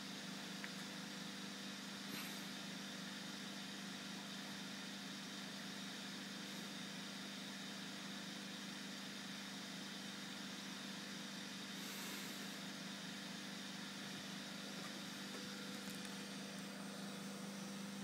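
Hockey-puck rotor pulse motor of a battery-charging rig running: a steady hum with hiss over it, while it charges a battery.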